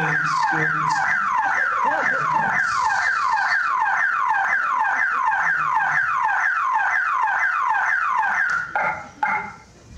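Electronic alarm sounding: a fast falling whoop, repeating about three times a second, that cuts off about eight and a half seconds in.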